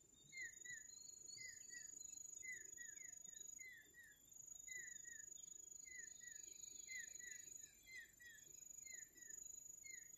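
Faint outdoor insect chorus: a steady high-pitched buzz, with short falling chirps repeating in twos and threes about every second.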